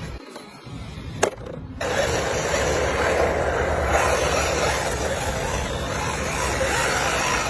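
RC drift car driving, its small wheels rolling and sliding on the ground as a steady rushing noise that starts suddenly about two seconds in, after a single sharp click.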